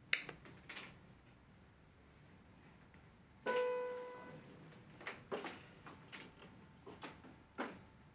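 Upright piano played by a baby's hand: one note rings out about three and a half seconds in and fades, among scattered taps and knocks on the keys.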